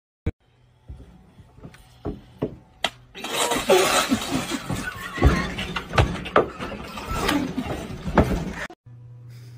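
A few knocks, then about three seconds in a molten-metal eruption and fireball in a steel plant goes off with a loud rushing roar and sharp cracks, while people cry out. It cuts off suddenly near the end.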